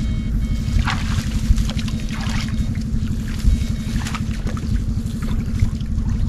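A small engine running steadily close by, with water splashing briefly about three times.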